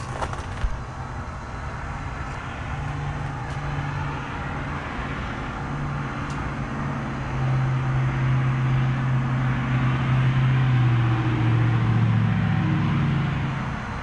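Lennox Merit 14HPX heat pump outdoor unit running in heat mode just after a defrost cycle, its fan and compressor giving a steady hum. A sharp click comes about half a second in, and a low rumble swells louder through the second half before dropping away just before the end.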